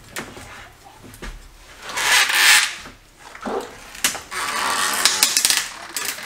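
Wooden 2x4 wall stud being wrenched loose from the framing by hand, with clicks and two loud stretches of scraping noise, one about two seconds in and a longer one from about four seconds on.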